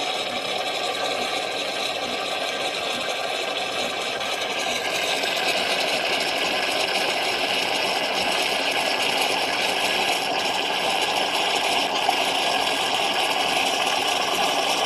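Coffee machine running with a steady mechanical buzz from its pump or motor, growing louder about five seconds in.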